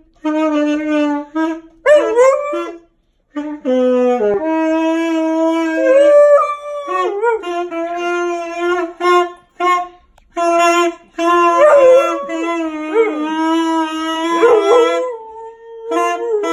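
A saxophone playing long held notes while a husky howls along with it, its wavering howls sliding up and down over the sax several times.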